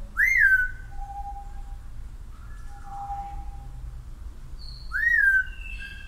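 Two loud whistles about five seconds apart, each sweeping quickly up and then dropping to a short held note. Softer, lower steady whistled notes come between them.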